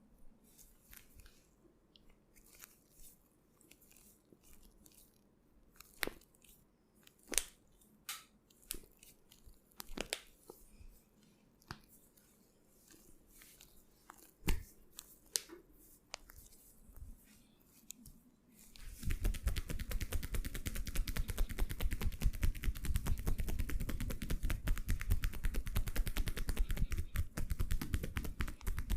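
Massage sounds from a barber's hands: scattered soft clicks and taps on skin at first. About two-thirds of the way in, a loud, fast, continuous patter of rapid hand strokes begins, the quick percussive tapping of an Indian head and body massage.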